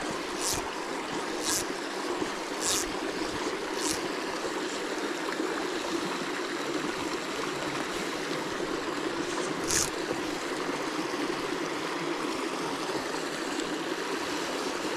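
Small rocky mountain creek running steadily over stones, a constant babble of shallow riffles. A few brief, high hissy sounds stand out over it in the first four seconds and once more about ten seconds in.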